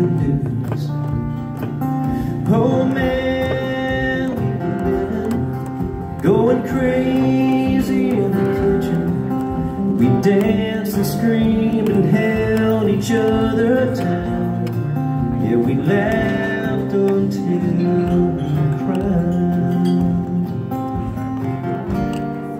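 Solo acoustic country performance: a man sings while strumming an acoustic guitar, the vocal phrases coming and going over steady chords.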